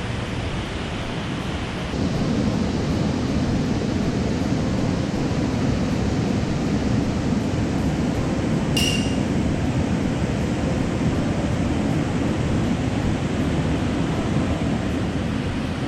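Steady rush of a mountain stream's flowing water, getting louder about two seconds in, with a single short high-pitched clink about nine seconds in.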